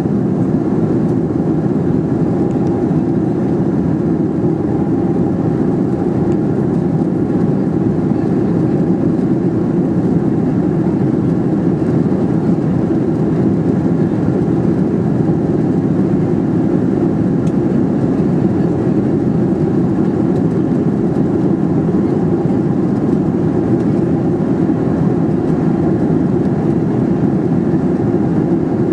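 Steady low drone inside the cabin of a Boeing 737-400 in flight, heard from a window seat over the wing: its CFM56-3 turbofan engines and the rush of air over the fuselage.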